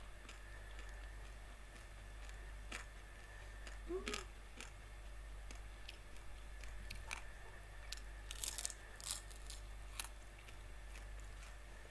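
Close-miked mouth crunching and chewing of grilled shell-on prawns, scattered crisp crunches of the hard shell with a quick cluster of louder crunches about two thirds of the way through. A short hummed voice sound about four seconds in.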